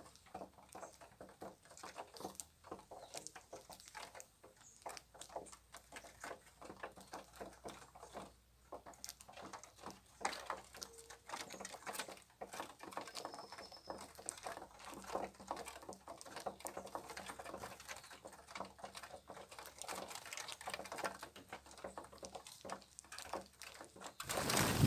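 Small birds pecking and hopping at scattered feed: many light, irregular taps and rustles, with one brief faint chirp midway. A louder thump comes near the end.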